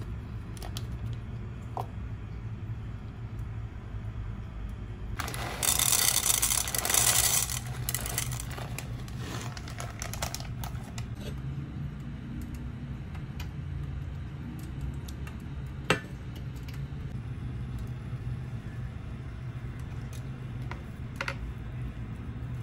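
Chocolate chips poured into a metal non-stick frying pan, rattling and scattering across the pan for about two seconds, over a steady low hum. A few lighter clicks follow, and there is one sharp tap a few seconds later.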